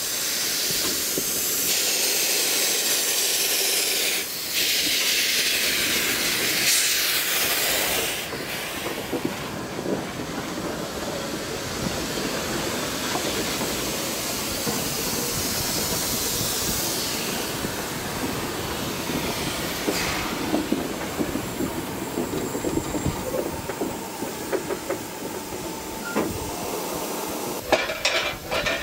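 South African Railways GMAM Garratt steam locomotive letting off steam: a loud hiss for the first several seconds that cuts off suddenly, then a quieter steady hiss and low rumble, with a few sharp clanks near the end.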